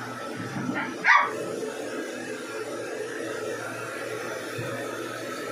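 A puppy gives one short, sharp bark or yelp about a second in, over a steady background hum.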